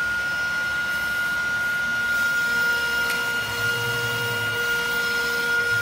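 AccTek AKM1325 CNC wood router running and cutting a wood panel: a steady high spindle whine over a constant hiss, with a low hum that swells for about a second midway.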